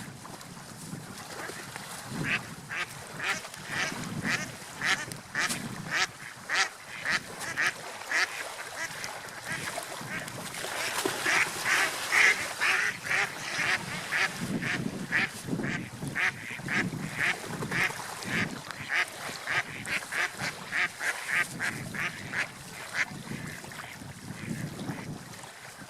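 Ducks quacking in a quick run of short repeated calls, about two or three a second, loudest around the middle and fading out near the end, over a low rumble.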